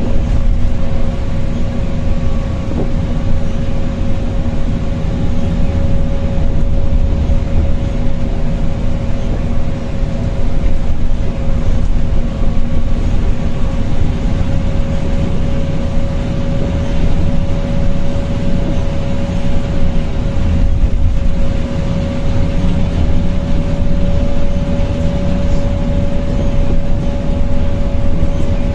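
Volvo B7RLE single-deck bus heard from inside the saloon while cruising at steady speed: a low engine and road rumble with a steady high whine from its ZF automatic gearbox, which is loud on this bus.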